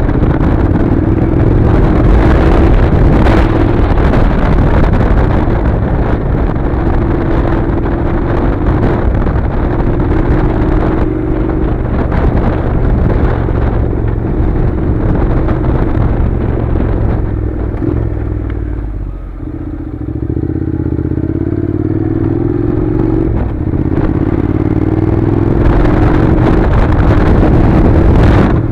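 Honda NC700's 670 cc parallel-twin engine running as the motorcycle rides a gravel track, with tyres crunching over loose stones and wind noise. About 19 s in, the engine eases off, then its note rises twice as the bike pulls away again.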